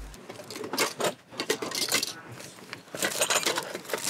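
Metal cutlery clinking and scraping against an enamel serving dish in a run of short, sharp clicks, with denser clusters about a second in and again near the end.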